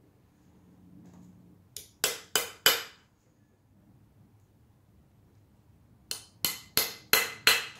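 Sharp hammer taps on a workpiece: a light tap and three quick strikes about two seconds in, then five evenly spaced strikes, about three a second, near the end.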